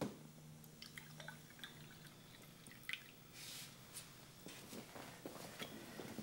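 Coffee poured into a cup at a diner table, with a few light clinks of crockery over a quiet room hum.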